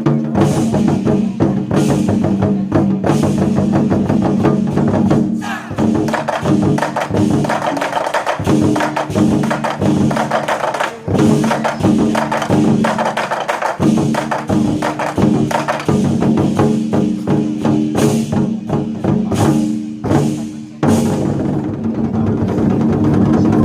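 An ensemble of Chinese war drums (zhangu) beating in unison, with sharp strikes, over a backing track of sustained tones. Heavier, sharper hits come in a cluster toward the end.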